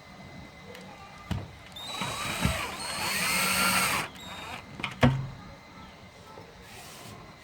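Cordless drill-driver running for about two seconds, driving a self-tapping screw to fix the folding screen door's frame back in place, then stopping sharply. A few sharp knocks and clicks of handling come before and after it.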